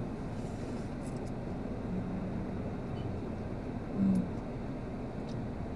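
Steady engine-and-fan hum inside a stopped car's cabin, with faint small sounds of eating noodles from a plastic bag and a short 'mm' from the eater about four seconds in.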